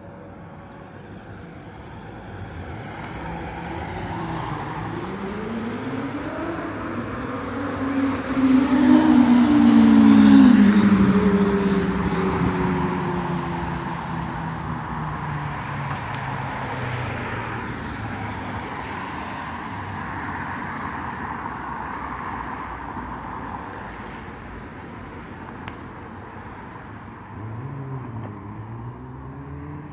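Street traffic: a motor vehicle approaches and passes close by about ten seconds in, its engine note rising and then dropping away as it leaves. Another vehicle can be heard approaching near the end.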